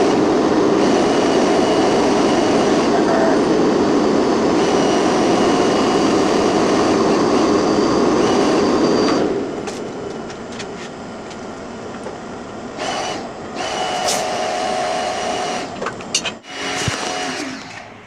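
Nitrogen rushing from a cylinder regulator and hose as an air-conditioner evaporator is pressurised to about 50 psi for a leak test: a loud, steady hiss with faint whistling tones. The flow cuts off about nine seconds in, leaving quieter, scattered handling sounds.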